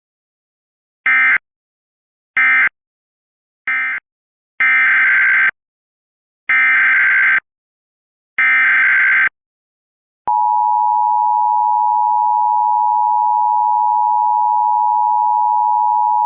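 Emergency Alert System signalling: three short end-of-message data bursts, then three longer buzzy SAME header data bursts of about a second each. About ten seconds in, the steady two-tone EAS attention signal starts and holds. Together they mark the end of one alert and the start of the next.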